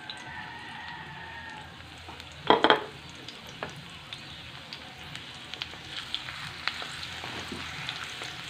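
Minced garlic sizzling gently in a little hot oil in an aluminium wok, the start of a sauté, with scattered small pops. A couple of sharp loud knocks come about two and a half seconds in, and near the end a wooden spatula starts stirring.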